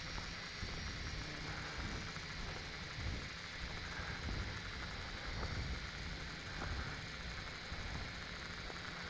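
Wind buffeting the microphone in an uneven low rumble, with a steady hiss and a faint hum underneath.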